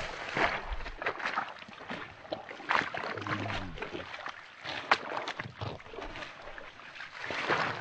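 Footsteps in hiking shoes splashing and squelching through shallow water and mud on a wet trail.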